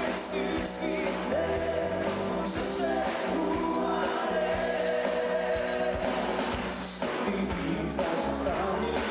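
Live pop-rock band playing: a male singer holding long sung notes over electric guitars, drums and keyboards, with a steady beat.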